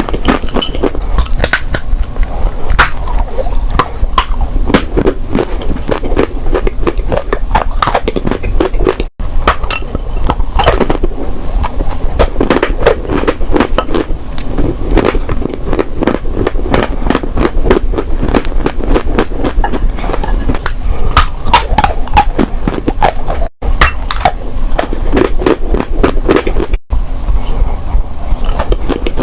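Dry crunchy clay being bitten and chewed close to the microphone: a dense, irregular run of crisp cracks and crunches, broken by a few short cuts.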